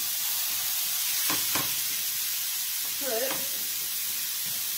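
Broccoli going into a hot pan of butter and sizzling, a steady frying hiss with two brief knocks about a second and a half in.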